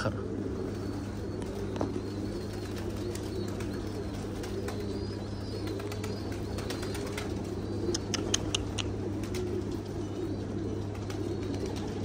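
Domestic pigeons cooing softly over a steady low hum, with a quick run of sharp high clicks about eight seconds in.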